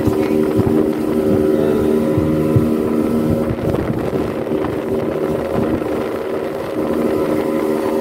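A speedboat's 75-horsepower engine running steadily at cruising speed. For a few seconds in the middle its steady hum weakens under a rushing noise.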